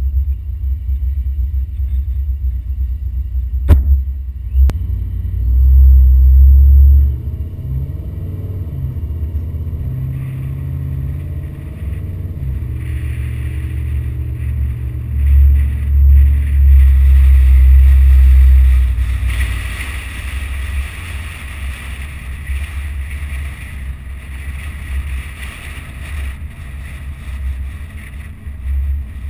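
Car driving along a road, heard from a hood-mounted camera: a low engine and road rumble with heavy wind buffeting on the microphone, loudest in two stretches of several seconds. A single sharp click comes about four seconds in.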